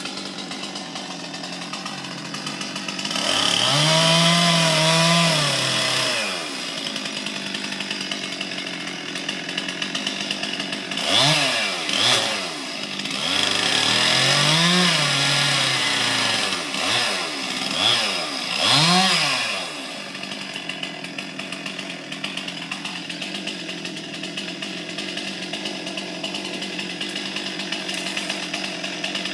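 Two-stroke chainsaw running at a steady idle and revved up and down in bursts: one long rev about three seconds in, then several short revs in quick succession between about eleven and nineteen seconds, each time dropping back to idle.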